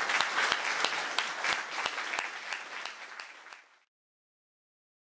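Audience applauding, with one nearby clapper's sharp claps standing out about three times a second. The applause dies away and stops about three and a half seconds in.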